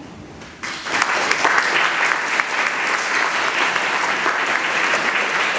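Audience applause breaking out about half a second in, just after the last chord fades, then going on steadily as a dense patter of many hands clapping.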